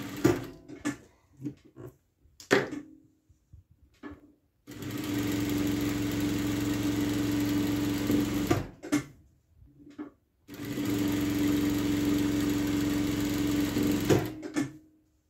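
Juita industrial sewing machine stitching binding along the edges of a patchwork square, running in two steady stretches of about three and a half seconds each. Between the runs the machine stops, with a few sharp clicks and knocks.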